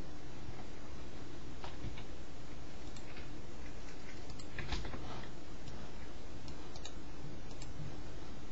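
Scattered single clicks at irregular intervals, a second or more apart, over a steady background hum and hiss.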